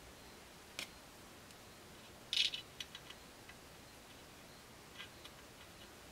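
Scattered light clicks and taps of small metal parts as an AR-15 free-float handguard and its screws are handled, the sharpest about two and a half seconds in.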